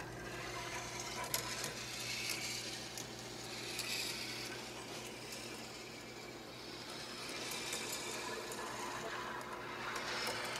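Marble rolling along Quercetti Skyrail plastic marble-run track: a continuous rattling roll that swells and fades as it runs through the curves, with one sharp click about a second and a half in.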